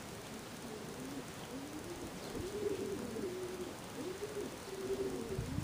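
Racing pigeons cooing: a run of low coos, each rising and falling in pitch, one after another from about a second and a half in.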